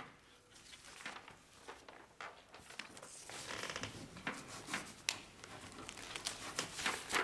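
Ballpoint pen scratching on paper and sheets of paper rustling and being handled as documents are signed. The rustling grows louder and denser in the second half, with a few sharp crackles.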